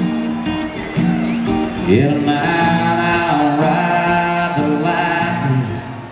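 Live solo acoustic guitar played by one man, chords ringing out, with male singing over it.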